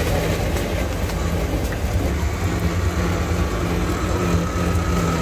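Pastry deep-frying in a wok of hot oil, a steady sizzle with faint crackles, over the steady low drone of a running engine.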